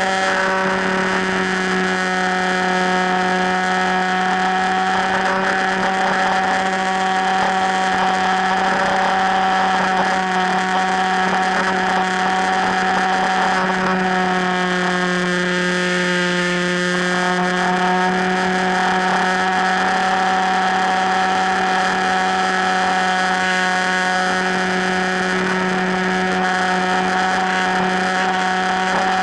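Electric motor and propeller of an FPV Raptor radio-controlled plane, a steady whine with a buzzing overtone, in flight. Its pitch sags for a few seconds about halfway through as the throttle eases, then climbs back.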